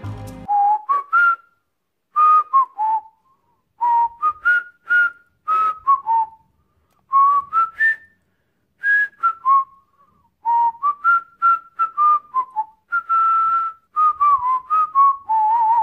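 A person whistling a relaxed tune in short phrases of rising and falling notes with brief pauses between them, ending on a held, wavering note.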